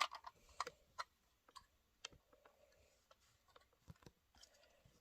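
Scattered light clicks of plastic Lego pieces being handled and pressed together, a few sharper ones in the first two seconds, then fainter.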